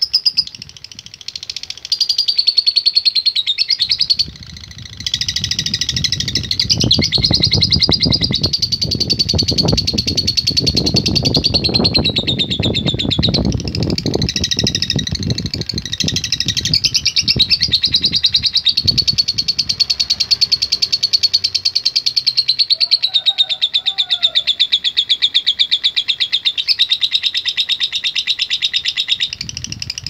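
Fischer's lovebird giving a long chattering trill (ngekek): a high, rapid run of clipped notes, many to the second, broken only briefly in the first few seconds. A low rumble of background noise runs under it through the middle.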